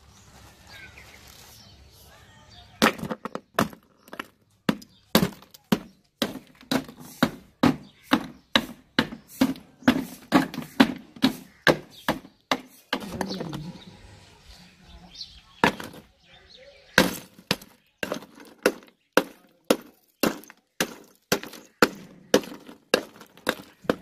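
Wooden pole pounding and breaking ice inside a metal tin, crushing it for an ice-and-salt freezing layer. The sharp strikes begin about three seconds in, come about twice a second, and pause briefly near the middle.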